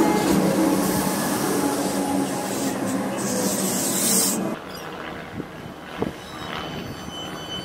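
Metro Trains Melbourne electric suburban train running past on the rails: a steady rumble with a strong hiss, which cuts off abruptly a little over halfway through. After that comes a quieter Siemens Nexas train arriving along the platform, with a few sharp wheel clicks and faint high-pitched wheel squeal beginning near the end.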